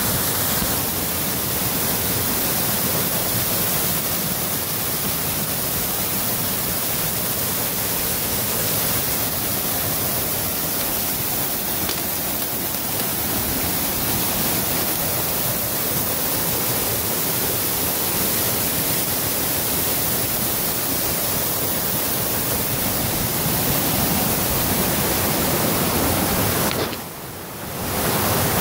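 Waterfall swollen by heavy rain, pouring in a steady, loud rush of water close by. Near the end it drops sharply for about a second, then comes back.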